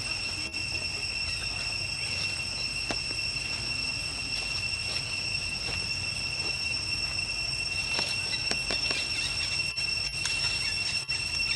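Steady high-pitched insect drone held on one unchanging pitch, over a low rumble, with a few faint clicks scattered through.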